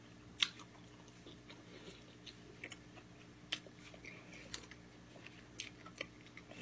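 Close-miked mukbang eating sounds: a person chewing gamjatang (Korean pork bone soup), with a sharp click every second or so.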